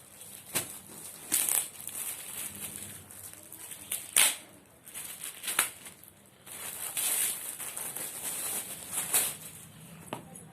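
Packaging crinkling and rustling in irregular bursts as a newly delivered sling bag is unwrapped and handled, with a few sharper crackles.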